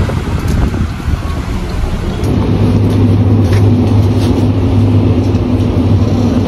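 Road and engine rumble inside a moving car's cabin. About two seconds in, it gives way to a steady low hum with a few light clicks of handling noise.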